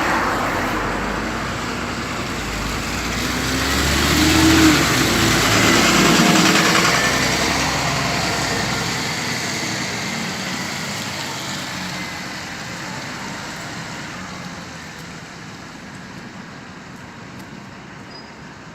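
Two coupled Class 375 electric multiple units pulling out of the station. The train noise and low rumble build to a peak about five to seven seconds in, then slowly fade as the train moves away.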